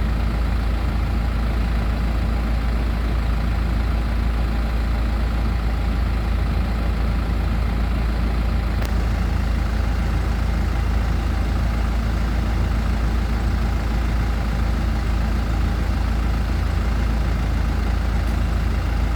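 Hino FB 130 bus diesel engine running steadily at idle, a constant low drone with no revving.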